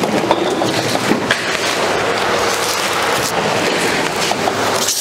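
Soft-serve ice cream machine wrapped in plastic film being rolled and turned by hand across a hard floor: a steady rolling rumble with the film rustling and a few light knocks.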